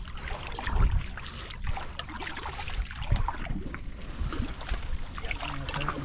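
Wooden canoe moving through floating water hyacinth: leaves and stems brushing and scraping along the hull, with irregular small crackles and water sounds.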